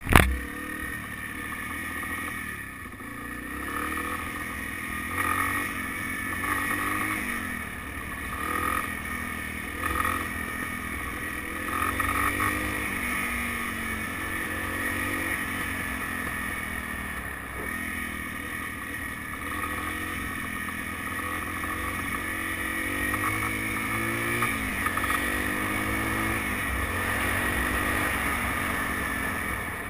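Yamaha BW200 Big Wheel's single-cylinder four-stroke engine running and revved up and back down several times, with the rattle the owner wants to show.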